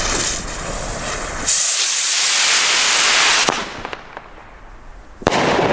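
A firework rocket's fuse fizzes, then the rocket launches with a loud rushing hiss for about two seconds as it climbs. Near the end comes a single sharp bang as it bursts.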